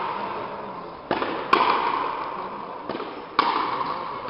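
Frontenis rally: the rubber ball cracks off the rackets and slaps the front wall of the fronton, in pairs of sharp hits about half a second apart, roughly every two seconds. Each hit rings on in the court's echo.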